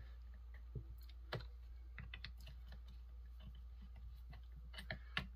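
Scattered light clicks and taps of a chainsaw's plastic housing parts being handled and fitted together by hand, with a sharper click about a second in and a quick run of clicks near the end.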